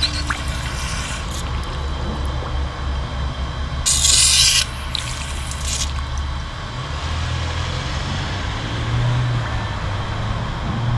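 Chevy 350 small-block V8 idling with a steady low hum. A loud burst of hiss about four seconds in lasts under a second.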